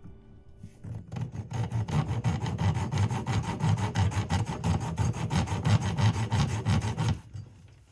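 Saw cutting through wood in quick, even rasping strokes. It starts about a second in and stops about a second before the end.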